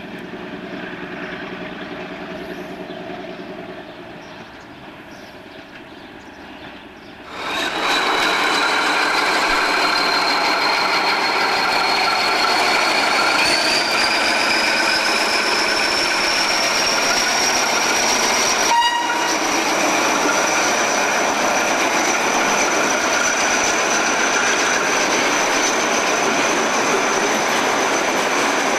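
An OSE 411-class ex-DB V200.1 diesel-hydraulic locomotive running, first moving away and growing fainter. About seven seconds in, it turns to the loud close sound of one of these locomotives pulling out with its train, working on its single serviceable engine. A steady engine noise runs under a high whine that rises in pitch and then holds.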